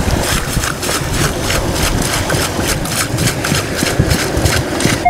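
Wet sand and debris rattling in a metal sand scoop, shaken quickly and repeatedly to sift out a find, about four to five shakes a second. A heavy wind rumble on the microphone runs underneath.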